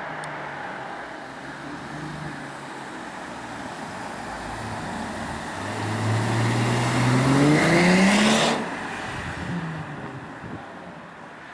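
Mercedes-Benz CLC 350's V6 through a hand-built mariani sports exhaust, idling, then revved up in a steady climb over about three seconds and let go, dropping back quickly to idle.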